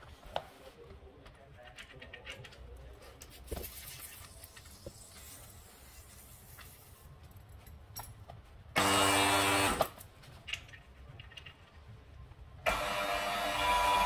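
Electric refrigeration vacuum pump switched on, running for about a second and cut off, then switched on again near the end and running steadily as it starts pulling a vacuum on the refrigerator's sealed system. Faint handling clicks before it.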